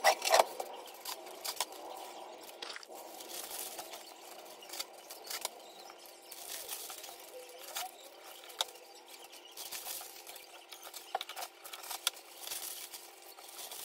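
Plastic bags or wrapping crinkling and rustling, with many small irregular clicks and taps, as slices of banana bread are handled and packed.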